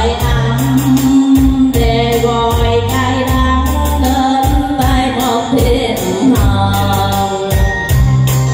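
A woman singing a Vietnamese song into a microphone with long held notes, over backing music with a steady beat and bass.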